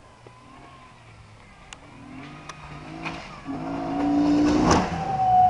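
A car approaching, its engine running with a steady pitch and growing much louder over the last two seconds, with a few faint clicks early on.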